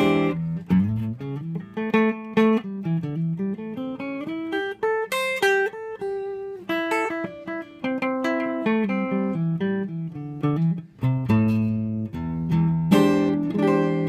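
Overdriven electric guitar, a Fender Stratocaster-style Super Strat on its single-coil pickups through a Snarling Dogs Tweed E. Dog overdrive pedal, playing a run of single-note lead lines, then letting a chord ring in the last couple of seconds.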